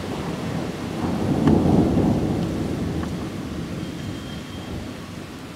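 Thunder: a deep rumble that swells about a second in, peaks soon after and rolls away slowly.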